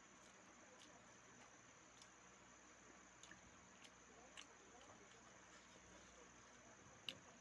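Faint eating sounds: soft scattered mouth and chewing clicks over near silence, with one sharper click near the end.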